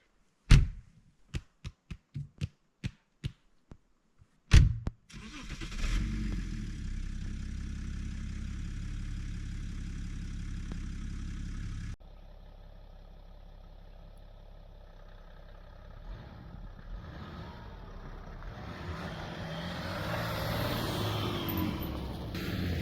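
A loud knock, a run of sharp clicks and a second knock, then the BMW X3's engine starts and runs steadily. After a cut, the car is heard moving, the sound growing louder toward the end.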